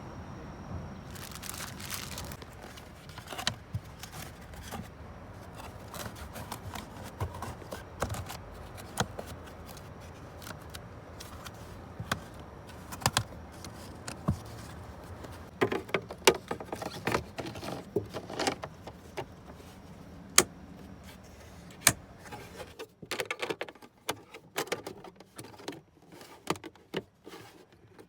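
Repeated plastic clicks, knocks and rattles from handling the dashboard trim and cabin air filter cover of a Toyota Crown Athlete (GRS200) during a filter change. A low steady hum lies underneath and drops away about three-quarters of the way through.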